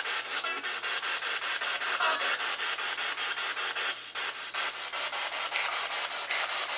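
Choppy radio static from an SB-7 spirit box sweeping through stations, layered with the Necrophonics app's white noise: a hiss that pulses about ten times a second.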